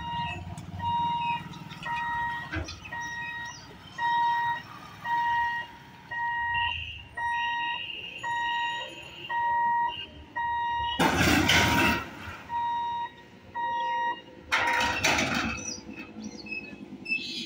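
Level-crossing warning buzzer beeping steadily, about two beeps a second, as the boom barrier closes the road ahead of an approaching train. Two loud rushes of noise, each about a second long, cut across it in the second half.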